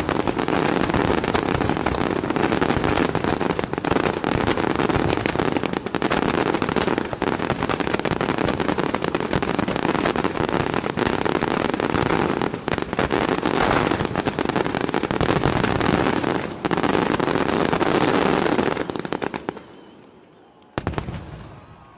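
Setti Fireworks aerial shells in a dense, unbroken barrage of bursts and crackle. The barrage dies away about three-quarters of the way through, and one more sharp burst comes near the end.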